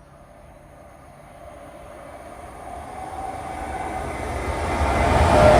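Class 810 Aurora bi-mode passenger train approaching, its rumble and rail noise growing steadily louder.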